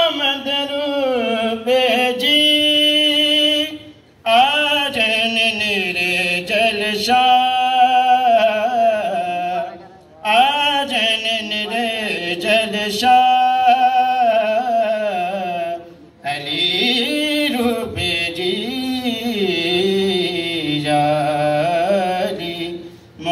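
A man singing a ginan, a devotional hymn, solo and without instruments, in long melodic phrases with held notes, pausing briefly for breath about every six seconds.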